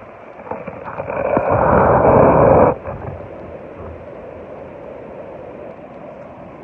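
Ocean waves washing steadily, with one louder surge that builds from about a second in and cuts off suddenly before the middle.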